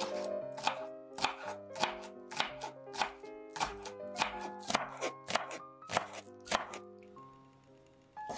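A kitchen knife chopping green onion on a wooden cutting board, with sharp regular chops at about three a second that then stop, leaving only the background music. Light background music plays throughout.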